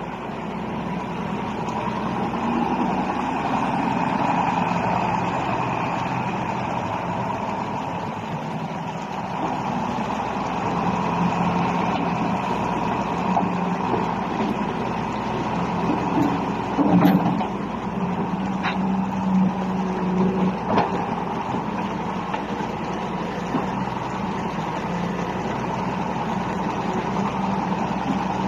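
Volvo EC290BLC crawler excavator's diesel engine running steadily, with a few short sharp knocks about two-thirds of the way through.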